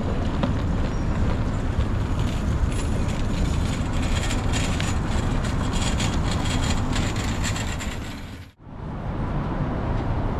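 Busy city street ambience: a steady rumble of avenue traffic with pedestrians passing close by. The sound drops out abruptly for a moment near the end, then comes back.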